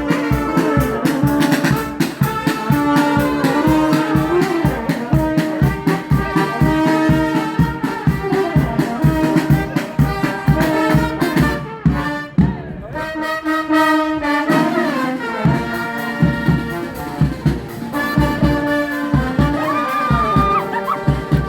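Live street brass band playing over a steady beat. The beat drops out for a couple of seconds about twelve seconds in, then comes back.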